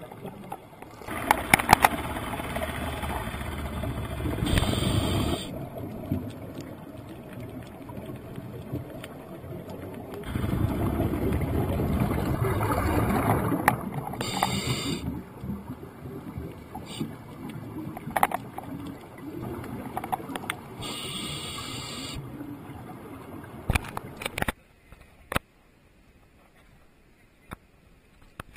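A scuba diver breathing through a regulator, heard muffled through an underwater camera housing: long spells of exhaled bubbles, each followed by a short hiss of inhalation, with a few clicks. It falls almost silent in the last few seconds.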